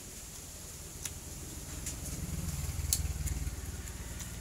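A passing vehicle's engine, a low hum that builds to a peak about halfway through and then fades. A few sharp clicks come through it, crunches of crisp green mango being chewed.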